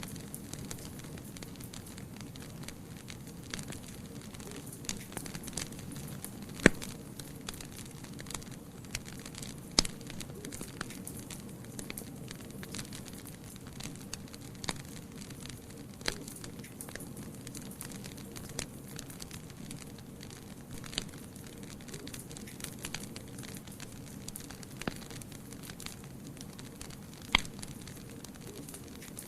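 Fire burning in a fireplace: a steady low rush of flame with scattered sharp crackles and pops. Three pops stand out louder than the rest, the last near the end.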